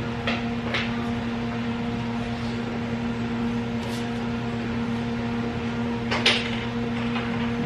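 A steady mechanical hum runs throughout, with a few brief clicks or rustles over it, the most noticeable about six seconds in.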